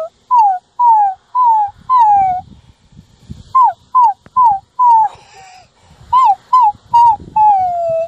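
Dachshund puppy howling: three runs of short, high yips falling in pitch, each run ending in a longer drawn-out howl.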